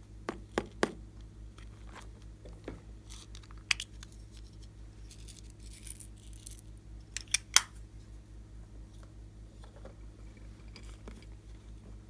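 Scattered sharp clicks and taps of small objects being handled while making slime, loudest in a pair about two-thirds of the way in, with a brief rustling hiss about halfway. A steady low hum sits underneath.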